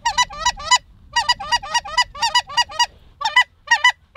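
Snow goose calls: a rapid, steady run of high, nasal honks in quick clusters of two to five, with short gaps between clusters.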